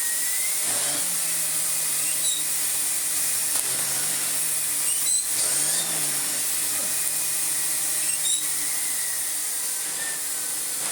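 Miele S5281 vacuum cleaner running with an air-driven Miele cat and dog turbo brush head spinning, its whir rising and falling in pitch as the head is worked; the head is running well. A few sharp clicks come about two, five and eight seconds in.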